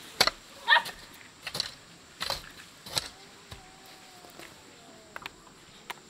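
Peanut plants rustling as gloved hands pick the pods off, with sharp snaps and clicks of pods coming away and dropping into a woven bamboo basket, most of them in the first three seconds.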